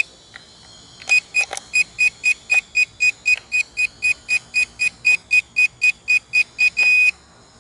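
Handheld drone remote controller beeping: a rapid run of short, high, identical beeps, about four a second, ending in one longer beep near the end.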